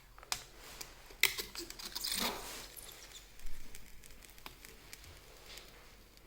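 Hands handling a PC case and its packaging: a few sharp clicks and a short rustling swish, with smaller taps in between.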